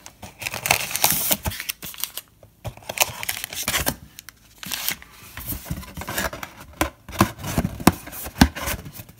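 Wrapped trading card packs rustling and crinkling as they are pulled by hand out of a cardboard box and stacked, with irregular sharp crackles and small taps throughout.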